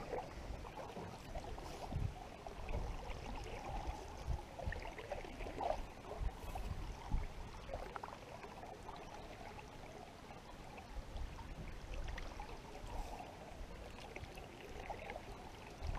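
Quiet water sounds of a canoe being paddled: water trickling and splashing off the paddle and lapping at the aluminium hull, with a few faint knocks.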